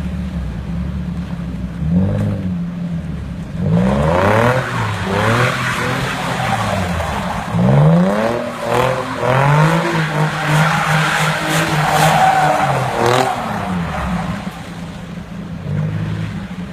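Nissan 350Z's V6 engine running steadily, then revving up and down again and again from about four seconds in, with tyres squealing and skidding through a drift. It settles back to a steady run near the end.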